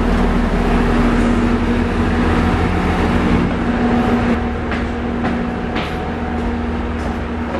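Diesel railcar's engine idling at a standstill, a steady low hum with one strong droning tone. A few sharp taps come in over it in the second half.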